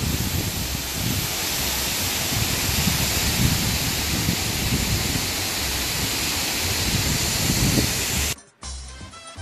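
Steady rushing of a large waterfall, with irregular low rumbles under it. It cuts off abruptly near the end.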